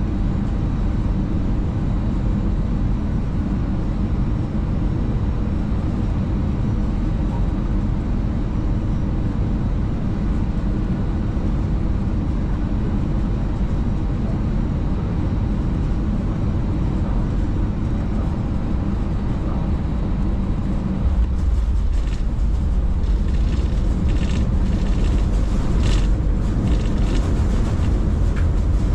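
Steady rumble inside an Airbus A319 cockpit as the airliner rolls on the ground after landing, with a faint hum of steady tones over it. About 21 s in, the low rumble grows louder and a scatter of clicks and knocks joins it.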